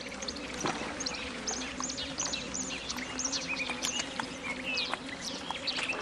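Small birds chirping over and over in short high calls, over a soft wash of lapping water, with a faint low steady drone underneath.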